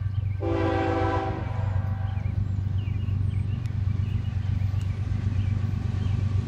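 Diesel freight locomotive's air horn sounding one blast about a second long, shortly after the start, over the steady low rumble of the approaching train.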